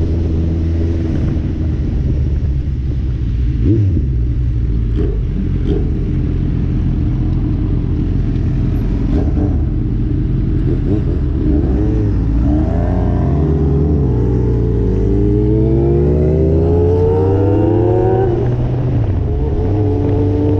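A motor vehicle engine running, then accelerating: its pitch climbs steadily for several seconds and drops sharply near the end, as at a gear change.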